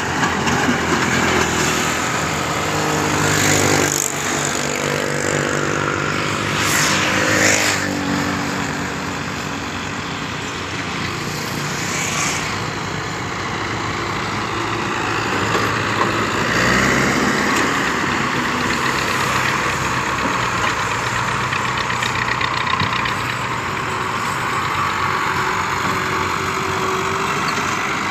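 Farm tractor diesel engines running under load as the tractors work the soil. The engine speed rises and falls a few times, most clearly about 3 to 8 seconds in and again near the middle.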